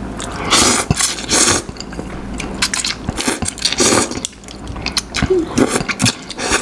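A person slurping noodles from a soupy bowl: four long, loud slurps, with wet mouth clicks and chewing between them.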